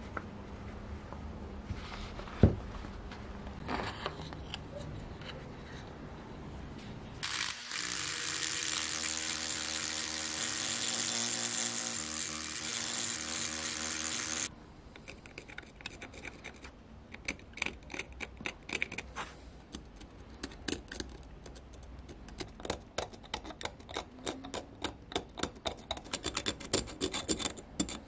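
Flexible-shaft rotary tool running for about seven seconds in the middle with a steady whine and hiss, its bit grinding at the corroded iron of an ancient axe head, then cutting off abruptly. After it stops, a thin hand tool scrapes and picks at the rust in quick, irregular scratches and clicks. The quieter opening holds small knocks and handling sounds.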